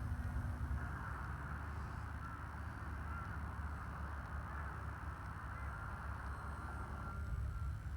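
Wind buffeting the microphone in a steady low rumble, with the faint, thin whine of an electric RC airplane's brushless motor in the air.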